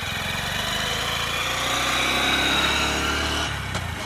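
Motorcycle engine passing by: it grows louder as the bike approaches, peaks past the middle, and fades near the end as it rides away.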